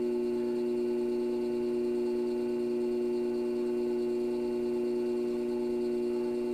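Electric pottery wheel running at speed, its motor giving a steady, even hum while the clay walls are pulled up.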